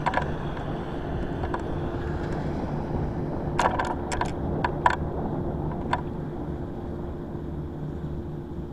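Steady low hum of distant machinery over outdoor wind noise, with a few sharp clicks about three and a half to five seconds in and one more at six.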